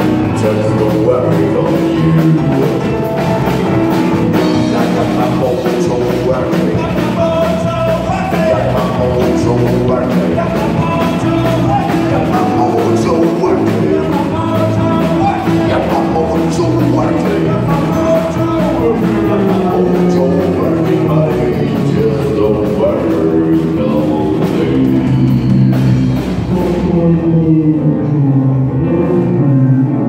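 Live rock and roll band playing: piano, drum kit and electric bass guitar together at a loud, steady level. The bright, hissy top end falls away near the end.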